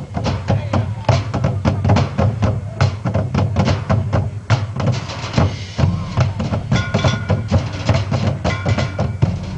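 Marching band performing a percussion-heavy passage: rapid drum strokes with short pitched notes ringing over them, loud throughout.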